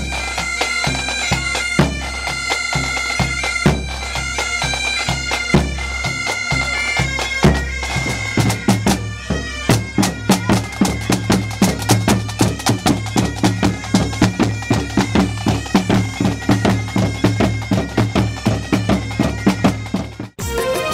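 Pipe band playing: Highland bagpipes sounding steady drones under the chanter melody, with a bass drum keeping the beat. From about eight seconds in, the tenor and bass drums play dense rapid strokes under the pipes.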